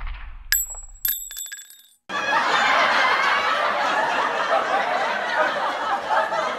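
A deep boom fading out, two bright bell-like metallic rings about half a second apart near the start, then, from about two seconds in, the steady babble of a crowd talking and laughing.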